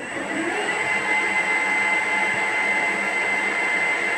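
Victor lathe's three-phase motor, fed from a single-phase to three-phase inverter, spinning the spindle up on its acceleration ramp. The whine rises in pitch over the first second, then the lathe runs steadily with a high-pitched whine.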